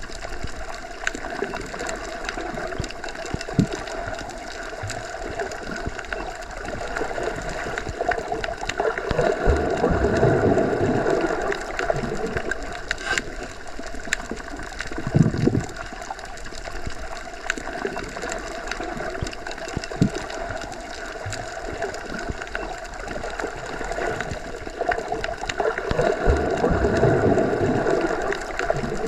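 Deep underwater ambience, heard as if through a submerged microphone: a muffled, steady rumble with a faint hum, scattered clicks, and slow swells about a third of the way in and again near the end.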